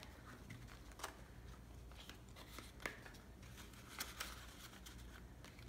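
Faint rustling and light clicks of paper banknotes handled and counted by hand, with a few sharper ticks about one, three and four seconds in.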